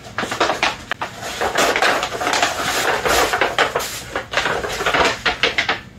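A mailed package being opened by hand, its wrapping torn and crinkled in a busy run of quick rustles, scrapes and clicks.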